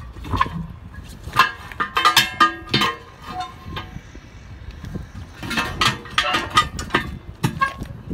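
Steel tire iron clanking and prying against a steel truck wheel rim while the tire is worked off by hand. Repeated sharp metal strikes, each ringing briefly, come in two bursts: from about a second in to three seconds in, and again from about five and a half to nearly eight seconds in.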